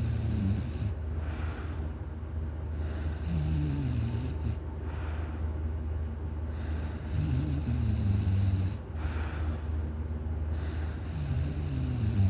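A person snoring in their sleep: a pitched snore that falls in pitch, repeating about every four seconds with three full snores, each followed by a breathy rush of air.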